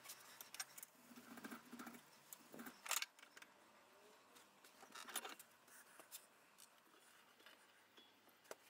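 Faint handling noises: light clicks and short scrapes of a steel knife blade and wooden strips being shifted in a bench vise, with the sharpest click about three seconds in.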